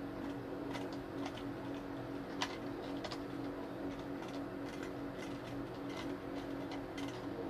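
Small clicks and taps of plastic and metal parts as a stand fan's pole is fitted into its base, with one sharper click about two and a half seconds in, over a steady low hum.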